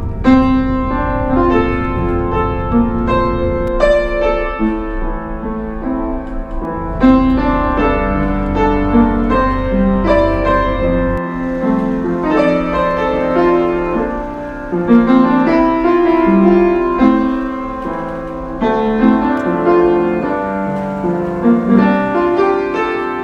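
Background piano music, a flowing run of notes. A low steady rumble underneath cuts off suddenly about halfway through.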